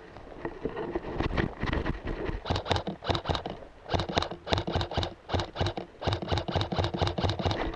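Fast running footsteps, about four strides a second, quickening and getting louder from about two and a half seconds in.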